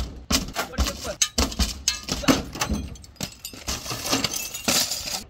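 Truck windscreen glass breaking, with shattered pieces clinking and falling in a quick, irregular run of sharp cracks and clinks.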